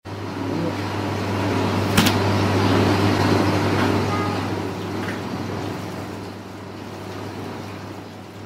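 Steady low hum of bakery machinery, with a single sharp knock about two seconds in.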